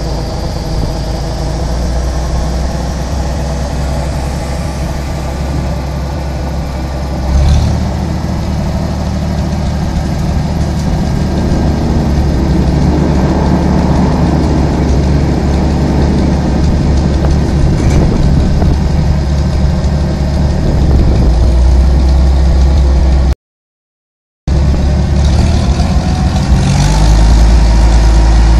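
Trackmobile 5TM rail car mover's Hercules G-3000 engine running steadily, with a single short thump about seven seconds in. The sound cuts out for about a second near the end, then the engine comes back louder and deeper.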